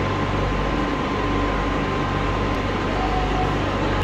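Madrid Metro Line 10 train standing at the platform with its doors open, giving a steady electrical and ventilation hum with a thin steady tone above it.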